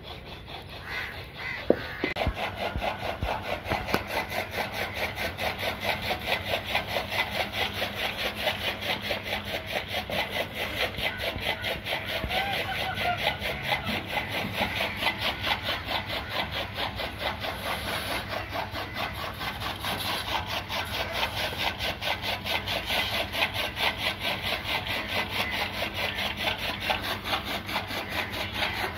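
Water buffalo eating chopped green fodder from a trough: a steady run of rasping, crunching strokes, several a second, with a single sharp knock about two seconds in.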